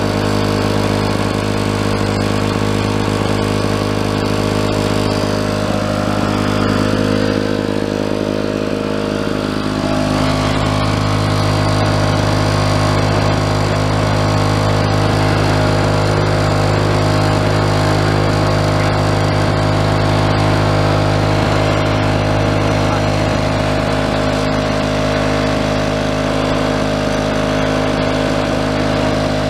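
1973 Lawn-Boy 5239B mower's OMC D-408 two-stroke engine running steadily, with a slight dip in level about seven to ten seconds in before it settles again.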